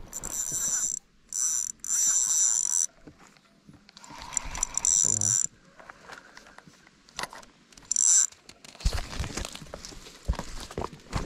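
Fishing reel drag buzzing in several short bursts as a hooked trout pulls line off the spool, followed by a few knocks and rustling in the last few seconds.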